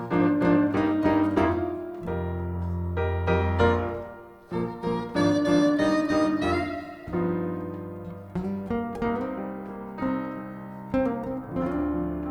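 Jazz piano played live, with chords struck in rhythm over a moving bass line.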